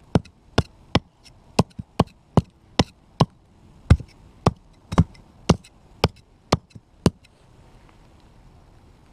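Dawson Raider 5 fixed-blade knife repeatedly driven point-first into a clay brick: sharp impacts about two a second that stop about seven seconds in.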